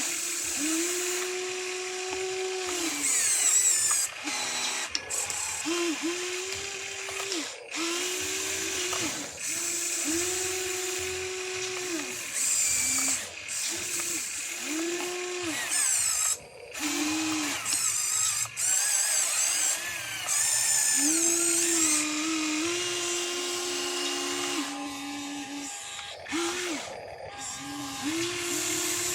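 Small electric motors and gearboxes of a radio-controlled toy construction vehicle whining in repeated spells of one to two seconds, each rising in pitch as a motor starts and dropping as it stops, with a thin, wavering high whirr above.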